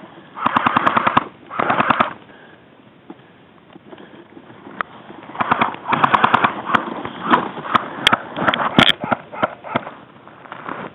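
Airsoft guns firing rapid full-auto bursts: two bursts in the first two seconds, then after a pause a longer string of bursts and single shots from about five to ten seconds in.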